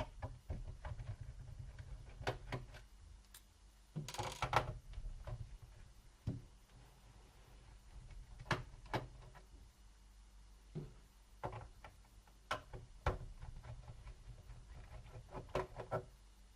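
Small screwdriver undoing the screws of a laptop's plastic bottom access cover: scattered light clicks, ticks and knocks of the tool and the case being handled, with faint scraping between them.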